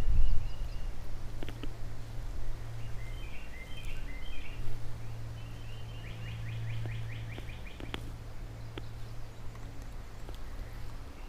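Small birds chirping, with a fast trill of about a dozen rapid notes about six to eight seconds in, over a steady low rush of the high river water.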